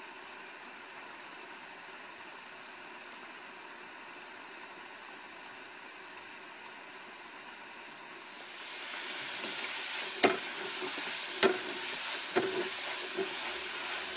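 Deep fryer of hot oil: a faint steady hiss, then from about two thirds of the way through the dense sizzle of fries frying, with a few sharp pops and crackles.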